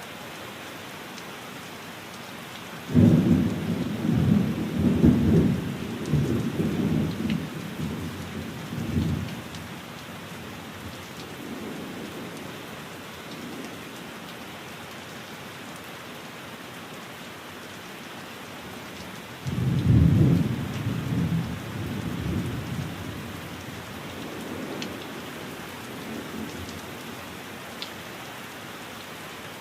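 Steady heavy rain with two rolls of thunder: the first breaks in suddenly about three seconds in and rumbles away over several seconds, the second comes in sharply about two-thirds of the way through and fades more quickly.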